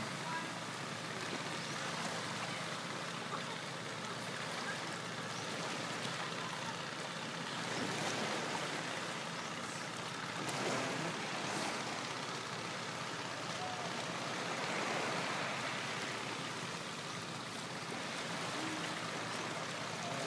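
Steady rush of shallow sea water sloshing and lapping close to the microphone, swelling a little a few times.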